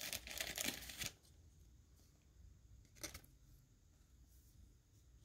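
Plastic card sleeve rustling and crinkling as a trading card is slid into it, stopping about a second in; one light tap about three seconds in.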